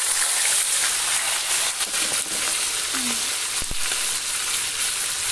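Freshly added sliced onions frying in hot oil in a karahi, a loud, steady sizzle. A brief low thump about three and a half seconds in.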